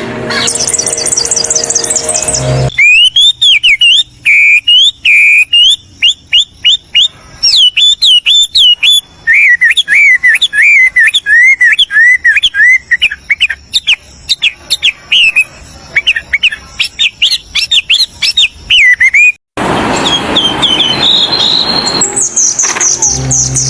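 Small songbirds chirping and trilling in quick, repeated rising-and-falling notes. A fast high trill opens it, a long run of sharp chirps follows, and after a brief noisy stretch the high trill returns near the end.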